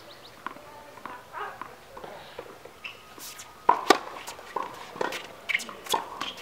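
Tennis rally on a hard court: sharp racket strikes and ball bounces, the two loudest close together a little past halfway, then more knocks at a rally's pace toward the end.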